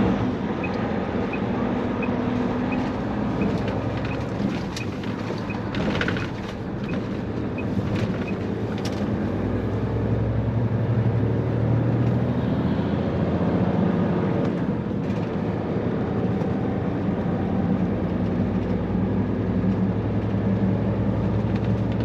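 Truck engine running steadily, building and rising in pitch about ten seconds in as it accelerates. A light regular ticking and a few sharp clanks sound over the first half.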